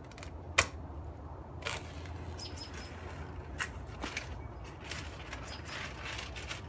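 Knife blade stabbing into and slicing through plastic house wrap: a sharp tick about half a second in, a few lighter ticks, then a crinkling rustle near the end as the cut flap of wrap pulls free.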